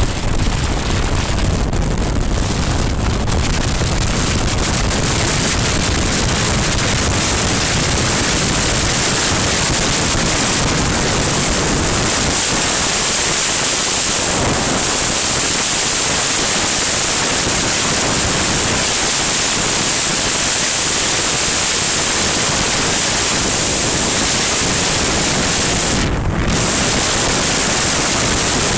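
Steady rush of wind over the camera microphone on a BMW R1200GS Adventure motorcycle riding at road speed, with road noise underneath. It eases briefly near the end.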